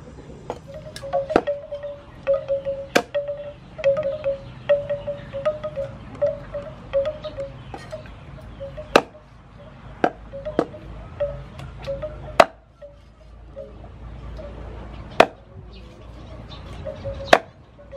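A meat cleaver chopping pork ribs on a thick wooden chopping block: heavy strikes at irregular intervals, with lighter taps between. A faint repeated note sounds in the background.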